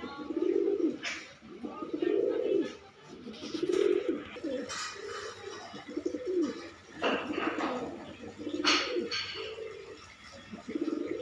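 Domestic pigeon cooing over and over, a run of low coos about one a second: the courtship coo of a male displaying with fanned tail. A few short sharp rustles come in between.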